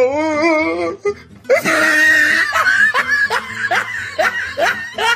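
A man laughing: a long wavering laugh for about the first second, then a run of short rising laughs, about three a second.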